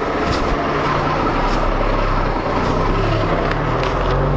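A motor vehicle engine running steadily over road noise, with a low hum.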